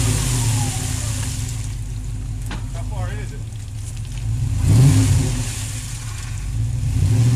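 Stuck SUV's engine revving in bursts as the driver tries to drive out of deep mud, its pitch climbing about four and a half seconds in and again near the end, with a hiss of tyres spinning and churning the mud.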